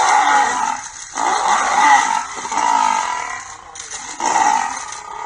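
Asiatic lioness and male lion snarling and growling at each other in a face-off, four loud rough snarls in a row with short breaks between them.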